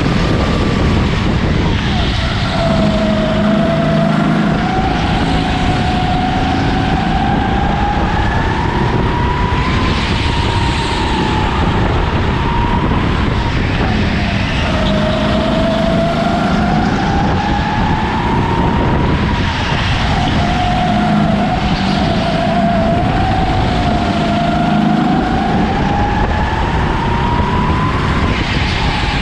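Racing kart engine running flat out on a lap, its pitch climbing slowly along the straights and dropping sharply several times as it lifts and brakes for corners, over a constant rumble of vibration.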